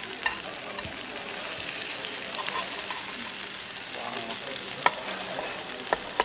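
Hamburger steak sizzling on a hot iron plate as it is cut in half with a knife and fork. A few sharp clinks of cutlery on the plate come in the second half.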